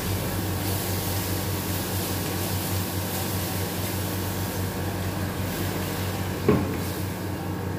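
Masala frying in a steel kadhai, a steady sizzle as it is stirred with a wooden spatula, with one sharp knock about six and a half seconds in.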